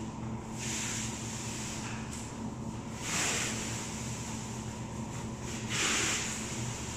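Hand roll of pre-stretch wrapping film being pulled off and stretched around a pallet of cartons, giving three bursts of hissing rasp about two and a half seconds apart over a steady low hum.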